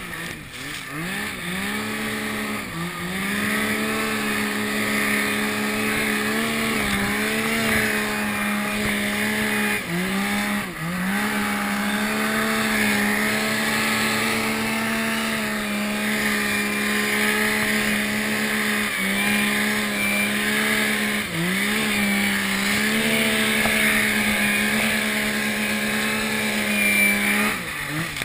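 Yamaha Nytro snowmobile's four-stroke three-cylinder engine running hard under throttle in deep powder, held at a steady high pitch. It dips and quickly revs back up several times.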